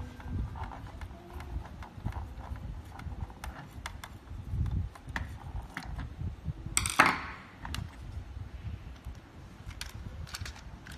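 A small screwdriver backing screws out of a plastic RC transmitter case, then the case being handled: scattered light clicks and plastic knocks over a low handling rumble, with one louder brief scrape about seven seconds in.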